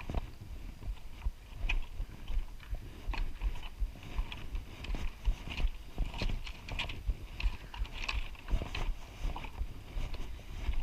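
Footsteps of a hiker on a rocky trail: irregular steps and scuffs, about one or two a second, over a low rumble.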